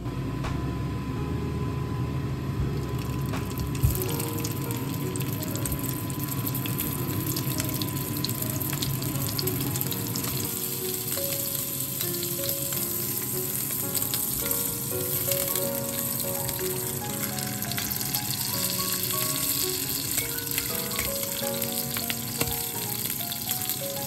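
Sausages frying in oil in a nonstick pan, a steady sizzle from a few seconds in, with background music playing over it and one sharp click near the start of the sizzle.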